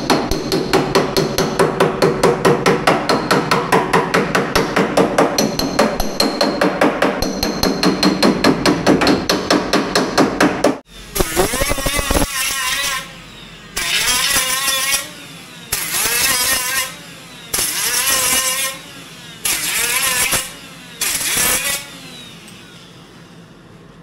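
Rapid, even hammering on sheet-metal car body, about six ringing blows a second, for roughly eleven seconds. Then a small cordless angle grinder with a cut-off disc cuts through a steel rocker-panel section in about five short bursts with brief pauses between them.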